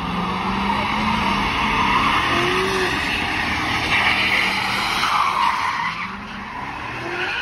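Car tires screeching in a long continuous skid, with the engine running underneath: a car spinning its wheels. The screech eases off somewhat near the end.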